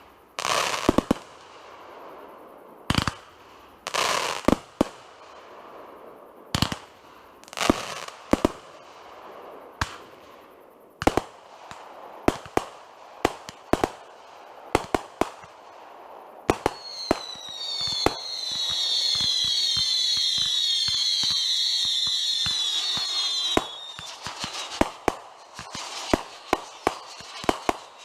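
Consumer fireworks going off: a string of sharp bangs, some with crackling tails. Past the middle, a chorus of shrill whistles, each falling in pitch, sounds for about seven seconds over the bangs, and then the bangs come faster.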